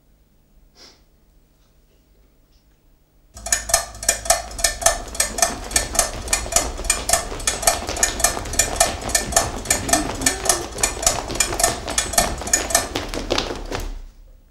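A fast, even run of sharp clicking knocks with a slight ringing tone, like a ticking mechanism played very fast, starting abruptly a few seconds in and cutting off just before the end.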